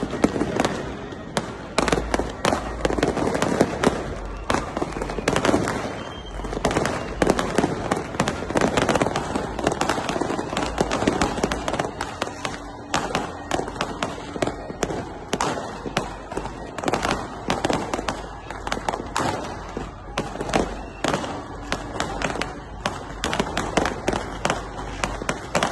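Fireworks going off in quick succession: a dense run of bangs and crackles.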